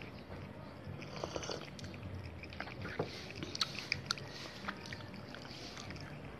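Domestic cat eating noodles: faint, scattered smacking and clicking of chewing over a low steady hum.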